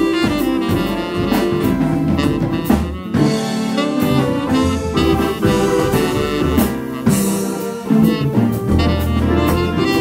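Band music: an instrumental passage of the song with no singing, with drums keeping the beat.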